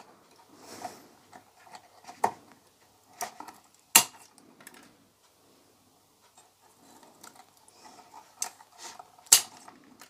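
Scissors snipping through thin dry twigs, a handful of sharp snips with the loudest about four seconds in and near the end, and light rustling of the branches between cuts.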